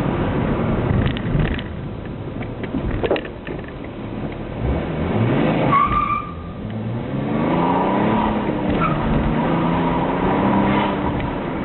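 BMW E90 straight-six diesel with a straight-piped cat-back exhaust, heard from inside the cabin as the car drives: the revs drop off, then rise under acceleration about halfway through, and climb and hold again after a brief dip.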